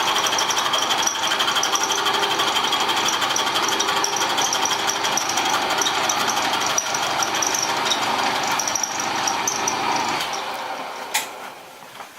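Milling machine cutting a metal block: a steady, rapid chattering cut with a high whine. It dies away about ten seconds in, and a sharp click follows near the end.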